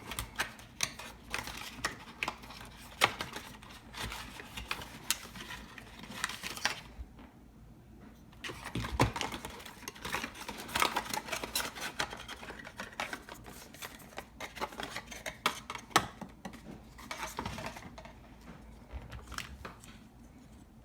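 Small plastic camera-mount parts and their packaging being handled: scattered clicks and rustling, with a short quiet spell partway through.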